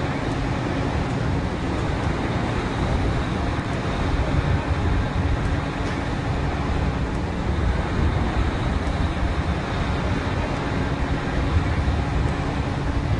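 Drilling rig machinery running with a steady, even drone and a faint high tone over it.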